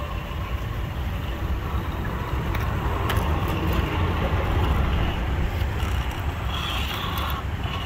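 Axial SCX10 II radio-controlled rock crawler working over rocks: a steady low rumble with a few sharp clicks, and a brief higher whine near the end.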